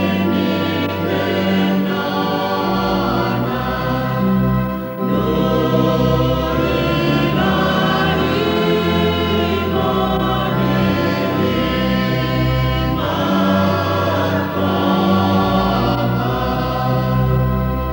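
Choir singing a Chamorro hymn in long held phrases, with steady low notes held underneath.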